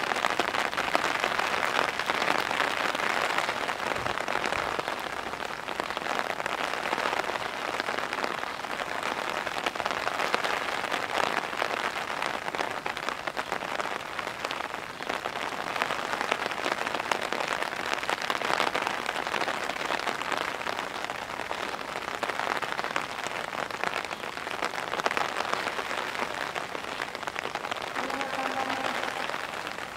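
Pouring rain falling steadily, an even, dense hiss of drops.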